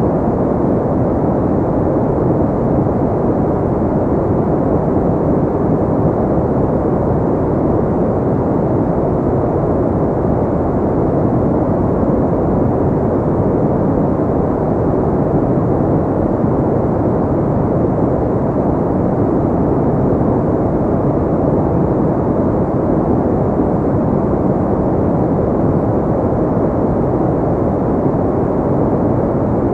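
Synthetic pink noise: a steady, muffled hiss with most of its weight low and little high end, unchanging throughout.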